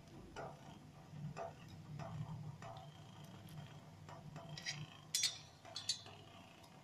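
Faint scattered taps and clinks on a perforated stainless steel steamer plate as besan-coated arbi leaf rolls are set down on it, with two sharper clicks about five seconds in, over a low steady hum.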